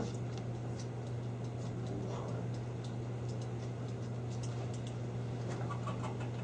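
Room tone: a steady low hum with scattered light ticks and clicks.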